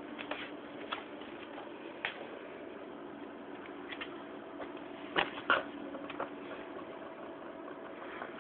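Altec Lansing ADA955 subwoofer putting out a steady droning bass note during a bass test, with scattered sharp clicks and two louder knocks about five seconds in.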